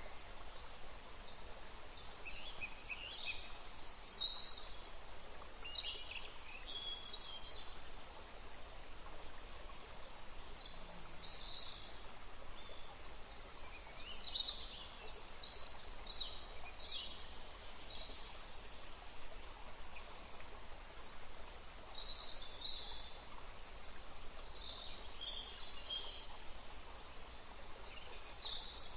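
Birds chirping, many short calls coming and going over a steady background hiss.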